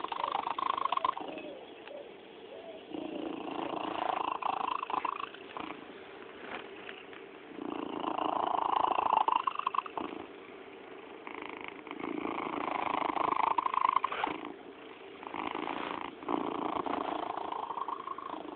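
Domestic cat purring right at the microphone, swelling in louder stretches of two to three seconds with quieter gaps between, about five times over.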